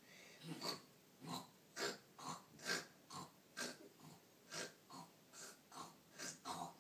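A person's mock snoring: short, noisy snores in quick succession, about two a second, much faster than the breathing of real sleep.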